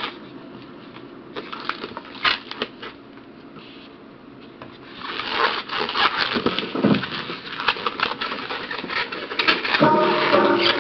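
Latex twisting balloons rubbing and squeaking as they are handled and twisted: scattered rubs and clicks at first, then a dense run of squeaks from about halfway. Music comes in just before the end.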